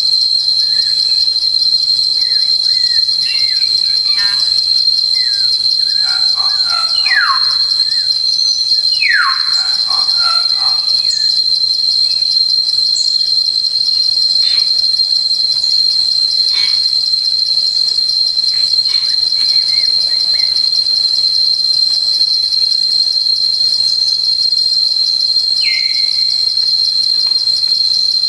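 Steady, high-pitched insect chorus trilling without a break, with a few bird whistles over it: two clear notes falling in pitch about seven and nine seconds in, and a short whistle near the end.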